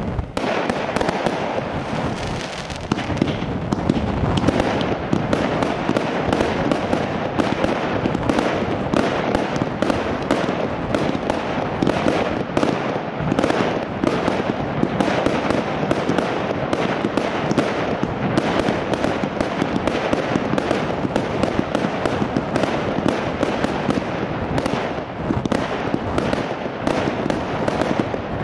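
Fireworks display: aerial fireworks bursting in rapid, continuous succession, several bangs a second with crackle, at a steady loudness.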